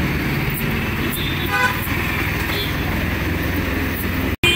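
Steady roadside traffic rumble with a short vehicle horn toot about one and a half seconds in.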